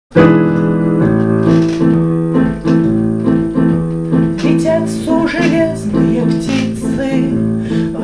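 Digital piano playing held chords, with a woman's singing voice joining about halfway through.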